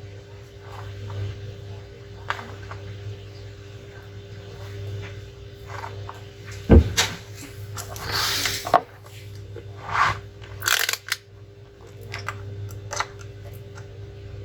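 Handling noises on a repair bench over a steady low electrical hum: a sharp knock about halfway through, then several short scraping, rustling sounds and a few light ticks.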